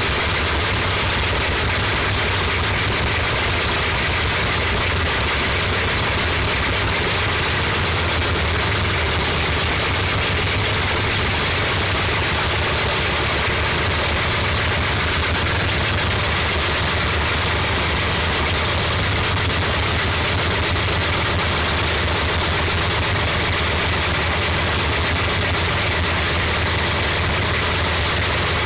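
Bristol Hercules 14-cylinder sleeve-valve radial aircraft engine running steadily with its propeller turning.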